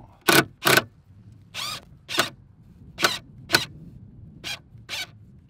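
Cordless drill driving a set screw into a Starlink pivot mount in short trigger pulses: eight brief motor whines, roughly in pairs, as the screw is snugged tight.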